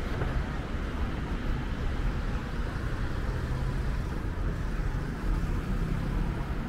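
Road traffic on a city street: cars running past, a steady low rumble with an engine hum.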